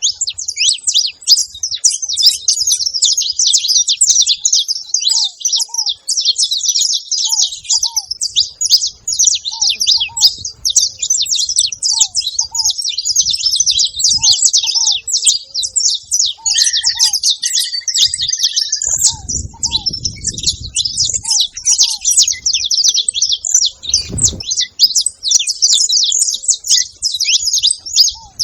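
Saffron finch (canário-da-terra) singing non-stop in a fast, high, chattering stream of chirps. Lower separate call notes repeat every second or so, and there is a dull thud about three-quarters of the way through.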